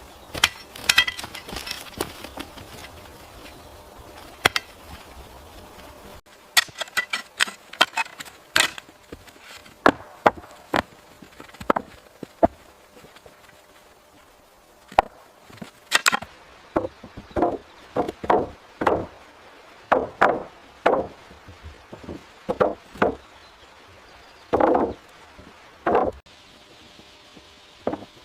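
Wood being chopped by hand: a long run of irregular, sharp blade strikes into timber, some with a short ringing knock.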